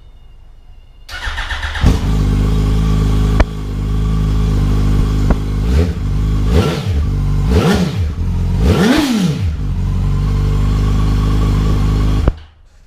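Yamaha R1's inline-four engine on its stock exhaust, cranked by the starter and catching, then idling with three quick throttle blips, the last revved highest, before it is switched off suddenly.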